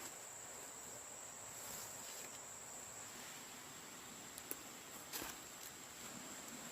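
A cricket trilling in one steady, high, continuous note, faint against soft forest background noise. A few short clicks come a little past the middle, followed by a single knock.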